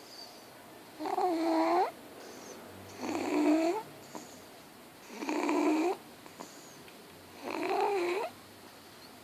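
Snoring: four long, pitched, squeaky snores at a slow, even rhythm, about one every two seconds.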